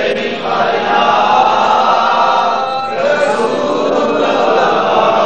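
A crowd of men's voices chanting together, loud and continuous, as at a devotional procession to a shrine.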